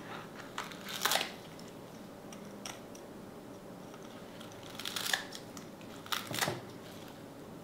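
A few sharp crunches of crispy fried pork-knuckle skin, one about a second in and a quick cluster around five to six and a half seconds in.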